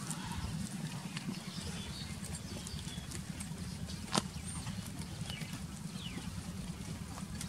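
Goats grazing close by: scattered small crunching and tearing clicks of grass being cropped and chewed, over a steady low hum, with one sharp click about four seconds in.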